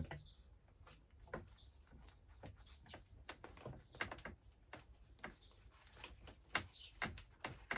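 A rubber handlebar grip, wetted with isopropyl alcohol, being twisted and worked onto a mountain-bike handlebar: a faint, irregular series of short squeaks and clicks.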